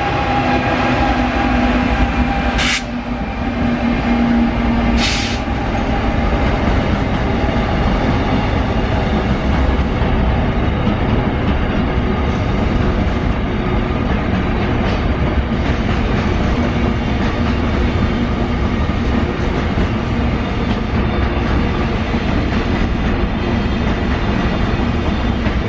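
Rajdhani Express train passing at high speed, about 130 km/h: a loud, steady rush of coaches and wheels with some clatter on the rails. There are two brief sharp cracks in the first five seconds.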